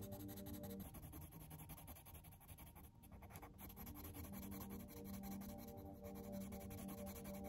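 Coloured pencil scratching across colouring-book paper in steady back-and-forth strokes, filling in an area of colour. A soft, sustained background music bed drops away about a second in and returns a few seconds later.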